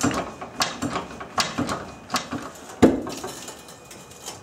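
Floor jack and jack stands being worked under a car: a run of uneven metallic clicks and clanks, like a ratchet, with the loudest clank near three seconds in.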